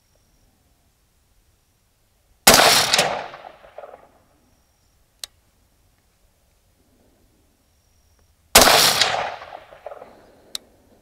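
Two shots from a semi-automatic Guncraft AR-15-pattern rifle in .22 Magnum (22 WMR), about six seconds apart, each report trailing off over about a second and a half. A faint sharp tick follows each shot a couple of seconds later.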